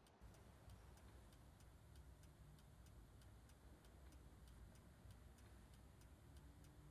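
Faint, steady, regular ticking, like a clock, over near-silent room tone.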